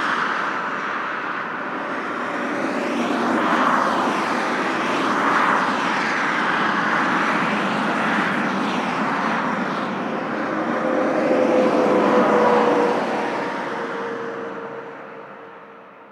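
Highway traffic ambience: a steady rush of tyres and engines that swells as vehicles pass, with a steady hum from one vehicle joining about two-thirds of the way through. The whole sound fades out near the end.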